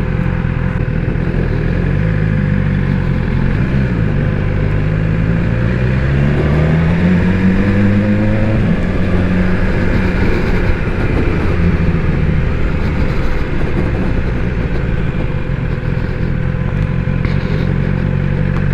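BMW S1000XR's inline-four engine heard from on board the moving bike. Its pitch dips about four seconds in, climbs steadily as the bike accelerates, drops back near nine seconds in, then holds steady.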